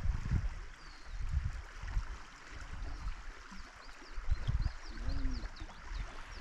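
Mountain river water rushing steadily, with uneven low rumbles. A run of quick high bird chirps comes in the second half.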